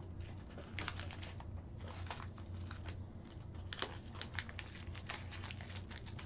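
Irregular small clicks and crinkles of hands sorting small metal nuts and bolts out of a plastic hardware bag and fitting them to a metal bracket, over a steady low hum.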